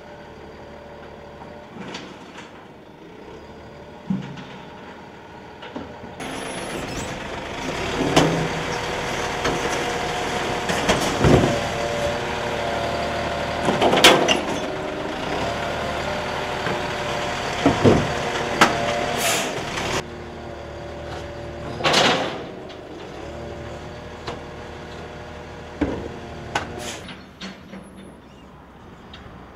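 Side-loading rubbish truck's diesel engine running, much louder for about fourteen seconds in the middle as its hydraulic bin-lifting arm works, with several sharp clanks and bangs of wheelie bins being lifted and tipped.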